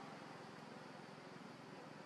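Near silence: faint steady background hiss with a low hum, and no distinct sound.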